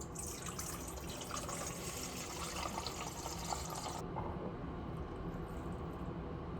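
Water running from a tap, cut off abruptly about four seconds in, leaving only a low steady background noise.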